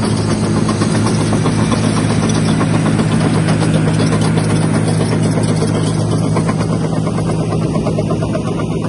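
2000 Caterpillar D5M LGP crawler dozer driving past, its diesel engine running steadily under the rapid clatter of its steel tracks. The clatter thins out and the sound fades a little from about six seconds in as the dozer moves away.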